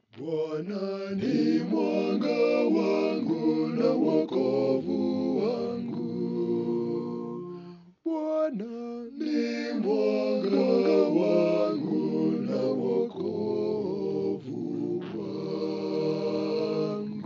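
Multitracked a cappella male voices singing a Swahili psalm response in several-part harmony, every part recorded by one singer. The singing breaks off briefly about eight seconds in and ends on a long held chord.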